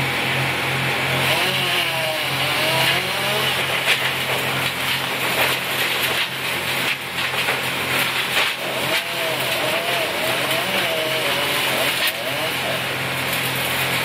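An engine running steadily, with faint voices talking over it at times.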